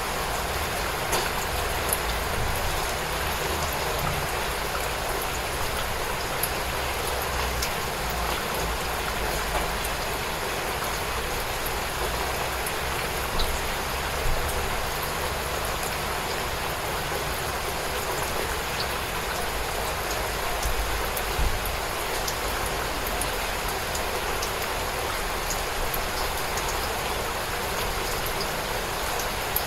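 Steady, gentle rainfall: an even hiss of rain with scattered individual drops ticking.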